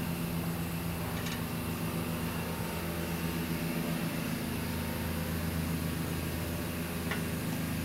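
A steady low mechanical hum, like a motor or engine running, with two faint short clicks, one about a second in and one near the end.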